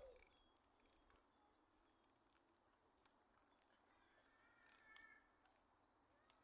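Near silence: faint outdoor ambience, with a faint bird call about four and a half seconds in.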